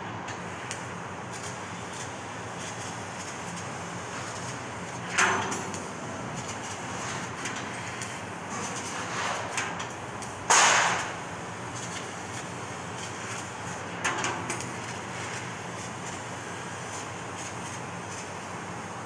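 CNC laser cutting machine running as it cuts a decorative grill pattern in sheet steel: a steady machine noise, broken by short bursts of hiss about five seconds in, near the middle (the loudest), and about fourteen seconds in.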